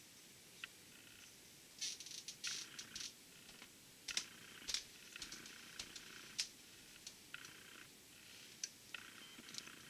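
Old transmission fluid draining from a torque converter's drain hole into a small pot: a thin stream trickling in and out, with scattered sharp clicks or splashes, the loudest about two to three, four to five and six and a half seconds in.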